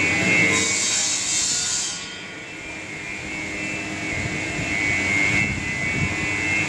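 A machine running with a steady high whine over a rushing noise, easing off about two seconds in and building up again.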